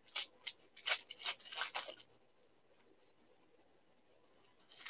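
Foil trading-card pack wrappers crinkling as they are handled and opened: a run of short, sharp crackles over about two seconds, and one more near the end.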